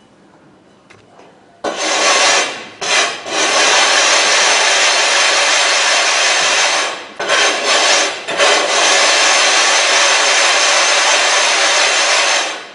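A sharpening stone being rubbed hard on a lapping plate with loose lapping grit: a loud, steady grinding rasp that starts about two seconds in, breaks off briefly twice, and stops near the end. This is the stone being flattened to grind out the hollow worn into its face.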